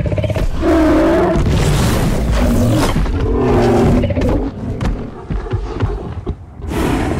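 Computer-generated dinosaur roars and growls played by the Apple Vision Pro, several deep wavering calls one after another over a low rumble, with background music.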